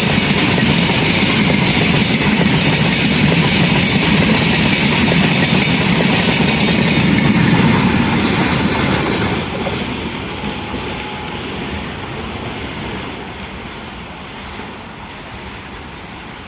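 Wagons of a passing Indian Railways train rolling by on the track, wheels running over the rails. The sound holds steady, then fades gradually from about nine seconds in.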